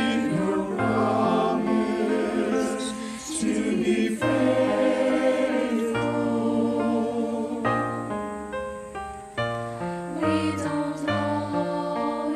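Mixed choir of men's and women's voices singing a slow worship song in harmony, on the lines "We believe Your promise to be faithful."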